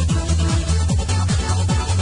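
Electronic dance music with a steady kick drum, about three beats a second, over a sustained bass line.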